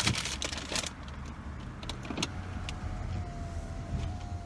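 Car engine idling with a low steady rumble, a few short clicks and rustles at the start, then an electric window motor whining steadily as the driver's window goes up, from about halfway on.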